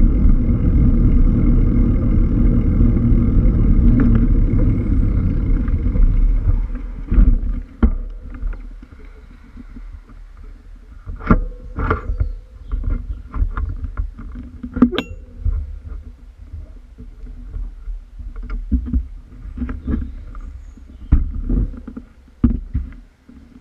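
Wind and road rumble on a bike-mounted action camera's microphone while riding, dying away about seven seconds in as the bike comes to a stop. After that it is much quieter, with scattered sharp knocks and clicks.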